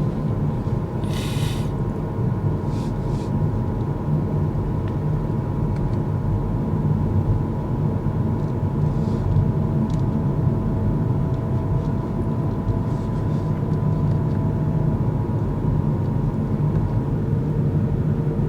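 Steady road and tyre rumble inside a Kia EV6 electric car driving along, with a thin steady whine over it from the drivetrain. The driver calls this a noise in the transmission that goes away in sport mode.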